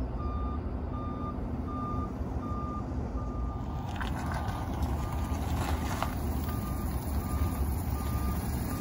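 A truck's backup alarm beeping steadily, a bit more than once a second, over the low rumble of an engine, with a few short knocks in the middle.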